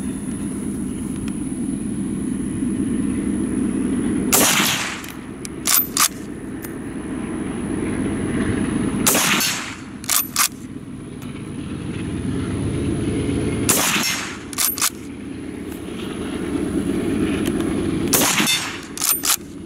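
Schmidt-Rubin Model 1889 straight-pull rifle fired four times, a few seconds apart, shooting handloaded GP90/23-style cartridges. About a second and a half after each shot come two quick clicks as the straight-pull bolt is cycled back and forward to chamber the next round.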